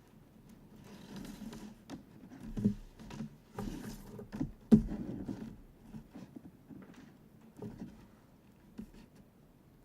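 Handling noise of the line and plastic fittings on a kite control bar: scattered small clicks and rustles, with the sharpest click a little under five seconds in.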